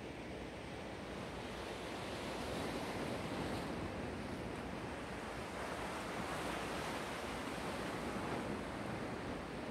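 Black Sea surf washing onto the shore: a steady rush of breaking waves that swells a little about three seconds in and again later.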